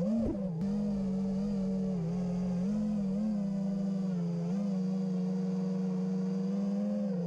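Brushless motors of a 5-inch FPV racing quadcopter (2206, 2300 kV) spinning 5-inch props, heard from the onboard camera: a steady buzzing whine. Its pitch swoops up and down near the start, then holds level with brief small rises as the throttle changes.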